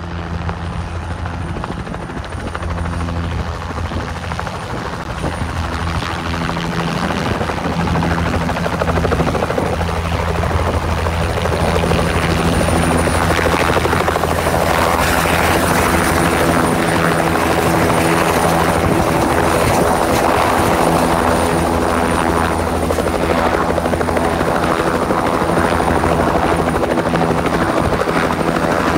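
Bell 505 Jet Ranger X helicopter, its two-blade main rotor and Arrius turbine running as it comes in to land, growing louder over the first dozen seconds as it closes in and hovers, then steady as it settles onto the pad with the rotor still turning. A thin, high, steady whine rides over the rotor noise.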